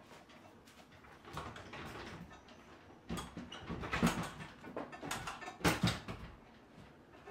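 Old wooden interior panelling and trim being pried and pulled loose by hand: a stretch of scraping and creaking, then a series of sharp wooden knocks and clatters, loudest about four seconds in and again near six seconds.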